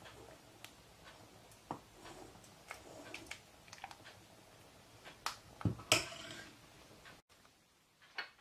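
Scattered faint clinks and knocks of a ladle against a pot and a white ceramic bowl as thick lentil soup is ladled out, with a louder knock or two about six seconds in. The sounds stop about a second before the end.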